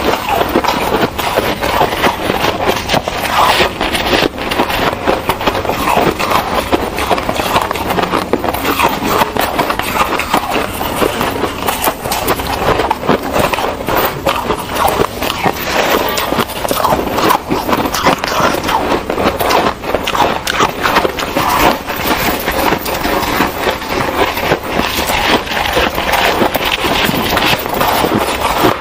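Two tracks of close-miked ice eating layered together: a continuous dense crackle of crunching and chewing shaved and foam ice, with the crunch of snowy ice being scooped and squeezed by hand and spoon.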